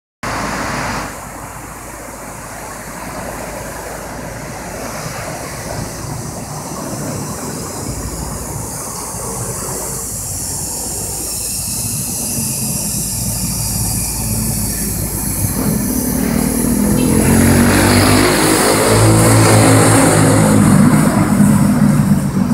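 Passenger train passing: CAF coaches roll by on the rails, then the diesel engine of its CKD locomotive grows louder as the locomotive comes alongside, loudest near the end.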